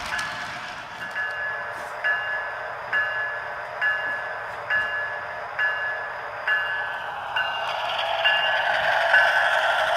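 HO scale model locomotive's sound-system bell ringing steadily, about one ding a second. Running noise grows louder toward the end as the locomotive nears.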